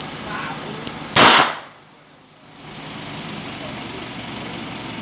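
A single shot from a long-barrelled 9 mm revolver: one sharp, loud crack a little over a second in.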